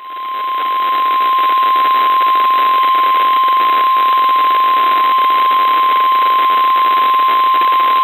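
NOAA Weather Radio 1050 Hz warning alarm tone, one steady pitch over the hiss of the radio signal, swelling up over the first second. It is being sounded as part of the required weekly test of the weather-radio alarm.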